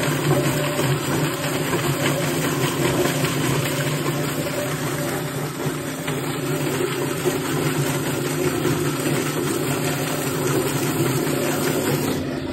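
Yardbird drum chicken plucker running: a steady motor hum as its spinning base plate tumbles a chicken against the rubber plucking fingers to strip the feathers.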